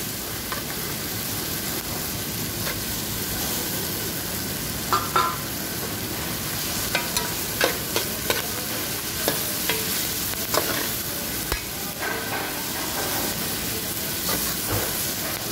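Raw salmon pieces frying in a metal pot with sautéed tomatoes and onions, giving a steady sizzle. A metal spoon stirs them, scraping and clinking against the pot at irregular moments.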